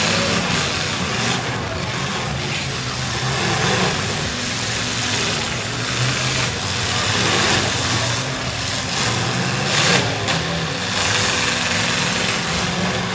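Demolition derby trucks' engines running and revving, several at once, over the noise of the crowd. A louder bang about ten seconds in.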